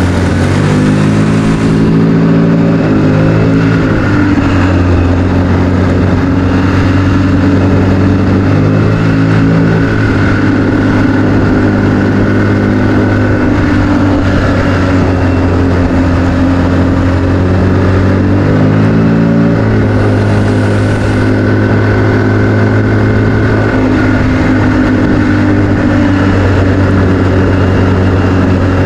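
ATV engine running steadily under way, its pitch rising and falling three times as the throttle is opened and eased.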